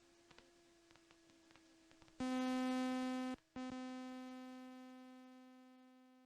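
A steady electronic tone with many overtones over a faint hum and ticking; it starts about two seconds in, breaks off briefly, then comes back and fades away slowly.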